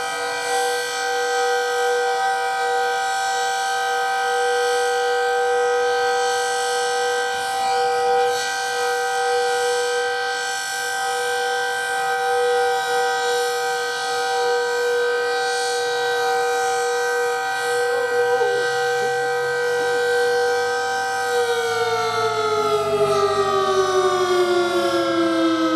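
Decot Red Arrow Model 12 outdoor warning siren sounding a steady two-note wail on its full-alert signal, then starting to wind down, its pitch falling steadily, about 21 seconds in. The recordist calls this aging siren dying.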